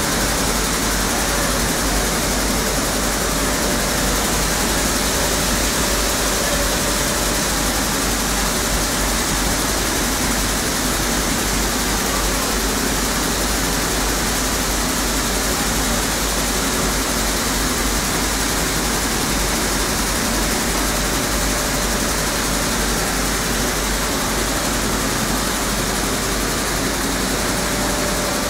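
Automatic atta chakki flour mill plant running: a steady, unbroken mechanical noise of its motors and grinding machinery, with a low rumble underneath and no change in pitch or level.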